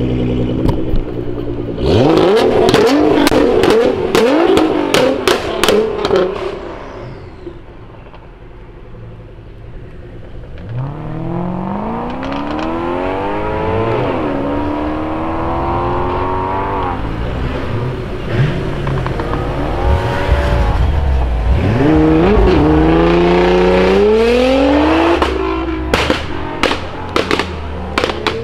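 Nissan GT-R R35 twin-turbo V6 through a straight-piped Armytrix exhaust: revving hard with a rapid string of pops and bangs, fading, then accelerating with engine pitch rising through gear changes. It ends with another burst of crackles and bangs.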